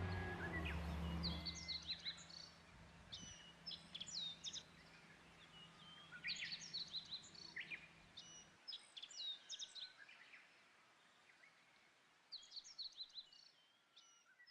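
Songbird calls: clusters of short, high chirps every couple of seconds, rather faint. A low steady hum sits underneath and stops about halfway.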